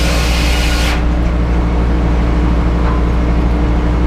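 An engine running steadily at a constant speed, with a hiss over it that stops about a second in.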